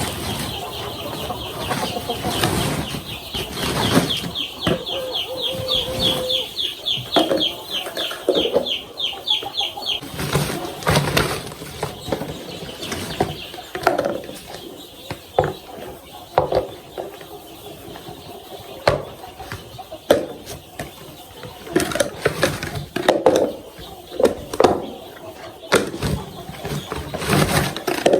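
Young chicks peeping: a rapid run of high chirps for about the first ten seconds. Scattered knocks and taps are heard throughout.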